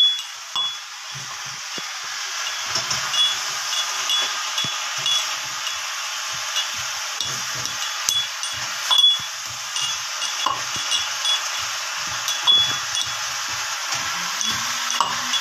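Vegetables frying in a wok over a wood fire: a steady sizzling hiss with scattered small pops and high clicks, and the occasional knock of the stirring spoon against the pan.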